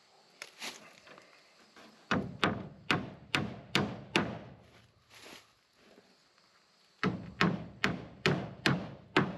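Hammer driving nails through poplar lap siding into a wooden frame: two runs of about six blows each, roughly two and a half blows a second, with a pause of a few seconds between them.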